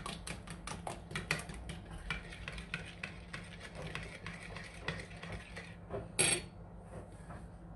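Metal spoon beating egg, sugar and milk batter in a ceramic bowl, clinking rapidly and regularly against the bowl before tailing off about five and a half seconds in. A short, louder clatter follows about six seconds in.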